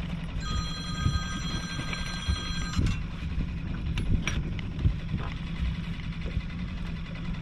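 Boat's outboard motor running steadily at trolling speed as a low hum, with scattered knocks from handling gear in the boat. About half a second in, a high steady ringing tone sounds for about two and a half seconds and cuts off.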